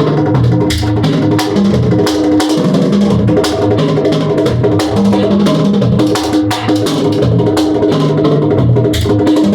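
Live band playing during a sound check: a drum kit keeps a steady beat with frequent sharp hits over a moving bass line and held notes.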